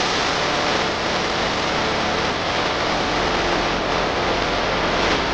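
Turbocharged six-cylinder pulling tractor engine running loud and steady, a constant roar with no changes in pitch.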